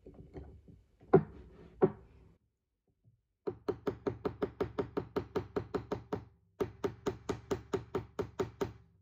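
Small jewellery hammer striking copper wire on a small metal anvil to flatten it: two single louder knocks, then two runs of rapid, even taps, about five a second, each with a short ringing note, with a brief pause between the runs.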